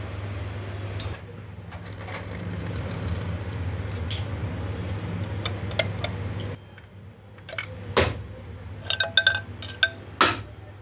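Metal tools and parts clinking against an aluminium gearbox case: a few sharp clinks with a short ringing tail, most of them bunched in the last few seconds. A steady low hum runs underneath and drops away about two-thirds of the way in.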